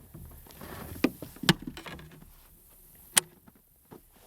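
A few sharp knocks and clicks of gear against a kayak while a bass is landed, over faint handling rustle: one about a second in, another half a second later, and a sharper click past three seconds.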